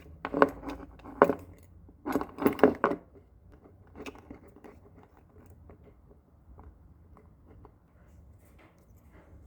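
Key fob and keys being handled: a quick run of sharp clicks and clinks over the first three seconds, then faint, scattered small taps.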